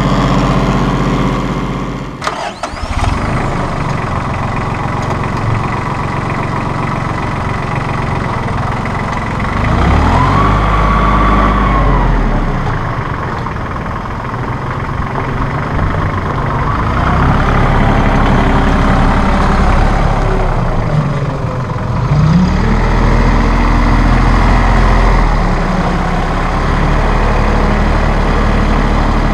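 Diesel engine of a 2005 New Holland TC30 compact tractor running steadily as the tractor drives and lifts its front loader. The engine speed rises and falls a few times.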